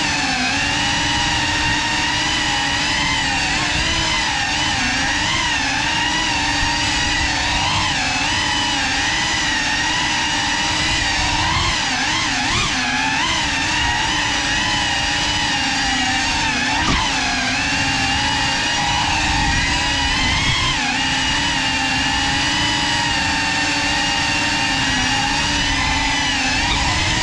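Brushless motors and ducted propellers of a GEPRC CineLog 35 cinewhoop drone whining steadily in flight, several tones rising and falling together as the throttle changes.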